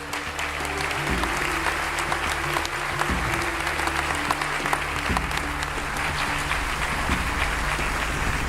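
Audience applauding, with background music playing underneath.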